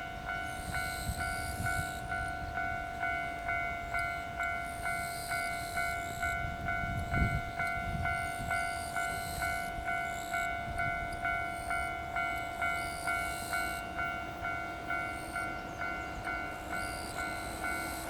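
Japanese level-crossing warning bell ringing steadily at about two strokes a second, over the low rumble and recurring wheel clatter of a passing container freight train.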